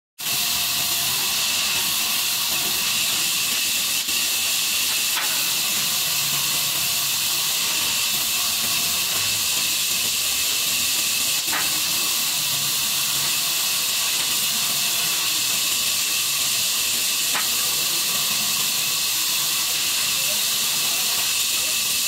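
Vertical band saw ripping lengthwise through a thick timber plank: a steady, even hiss of the blade cutting wood, unchanging in level, with a few faint ticks.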